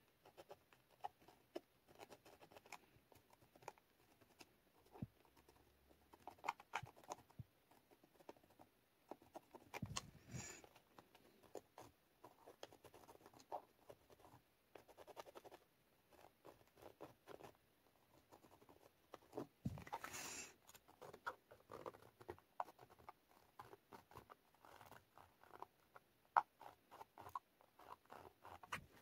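Faint scratching and tapping of a marker tip drawing short strokes on paper along the edges of a plastic stencil, quickening into a rapid run of strokes near the end. Two brief louder rustles come about a third and two-thirds of the way through.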